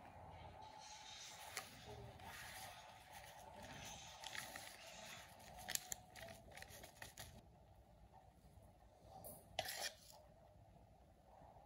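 Faint crinkling and rustling of a plastic spice sachet being handled and emptied over a bowl of flour, with a few light clicks. The rustle dies down after about seven seconds.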